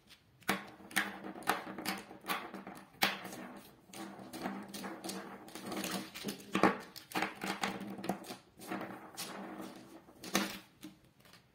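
Plastic felt-tip marker pens clicking and clattering against each other and the paper as a handful is set down and spread out, a string of irregular sharp clacks.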